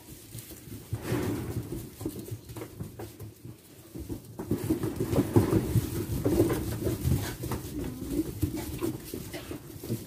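A flock of sheep shuffling and moving about in a straw-bedded pen, with scattered small knocks and faint low sounds from the animals, but no loud bleats.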